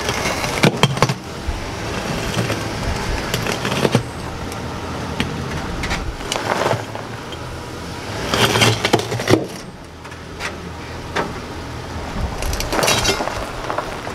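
Pickup truck's engine running at low speed as its tyre rolls over gravel onto a board pressed against a small garden-tractor tyre to break the bead, with gravel crunching and several sharp clicks and cracks from the board and tyre.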